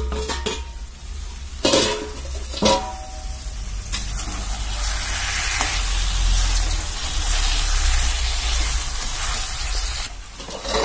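A steel lid clanks against the pan three times as it is lifted off a kadai, with a short ringing after each knock. Then chicken curry sizzles in the hot oil and masala as it is stirred with a spatula, a steady hiss for most of the rest.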